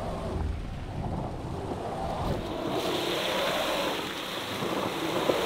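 Mitsubishi Outlander on throttle over an offset mogul with a wheel in the air, heard from inside the cabin: steady engine and drivetrain noise, with a rushing hiss that grows about three seconds in. The car is struggling for traction and barely making progress, its rear wheels spinning.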